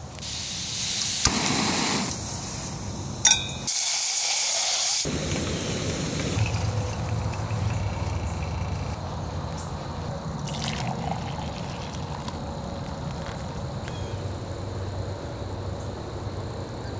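A small backpacking canister stove hissing, with two sharp clicks in the first few seconds. Then coffee is poured from a metal pot into a ceramic mug, with a liquid trickle.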